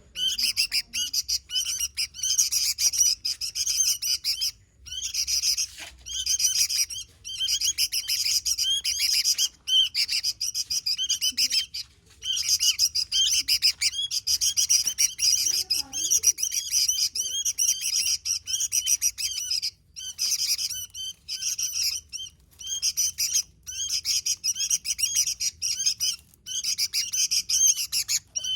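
Sooty-headed bulbul (kutilang) in full, energetic song: rapid runs of bright chirping notes, nearly continuous with brief pauses between phrases.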